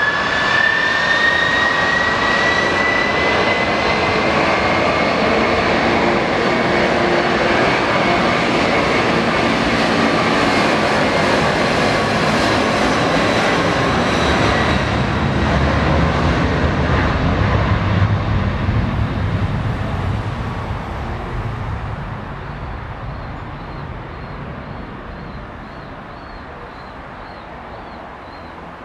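Airbus A310 twin-engine jet at high power on the runway, most likely during its takeoff roll: a whine rises in pitch over the first few seconds, the engine noise stays loud with a low rumble building past the middle, then fades steadily over the last several seconds as the aircraft moves away.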